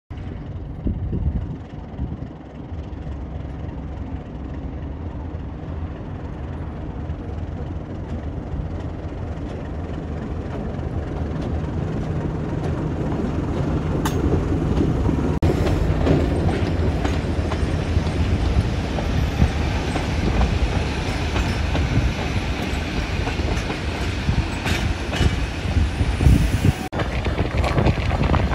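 Commonwealth Railways NSU-class diesel-electric locomotive NSU52 running as it hauls its carriages past, the engine drone growing louder toward the middle. In the second half the wheels click over the rail joints.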